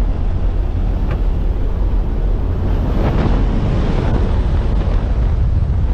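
Loud, steady wind rushing over the microphone, a low rumble with no steady tone, as in a skydive.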